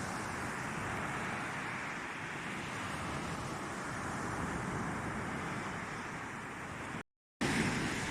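Small sea waves washing onto a sandy shore, with wind on the microphone. The sound cuts out completely for a split second about seven seconds in.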